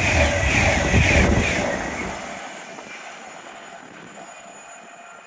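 A train passing at speed on an electrified main line, its wheels beating out a regular rhythm, then quickly fading away about two seconds in.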